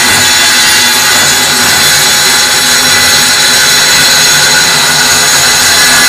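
Pumpkin 7-inch circular saw running steadily under load while ripping along a wooden board: a continuous high-pitched whine of the blade cutting through the wood.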